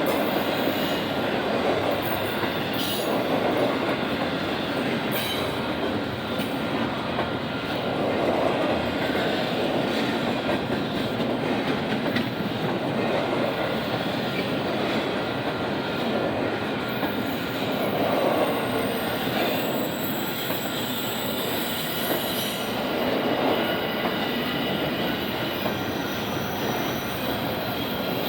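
Intermodal freight train cars rolling past: a steady rumble of steel wheels on rail that swells and eases every few seconds, with a few sharp clicks. Faint high-pitched wheel squeal comes in during the second half.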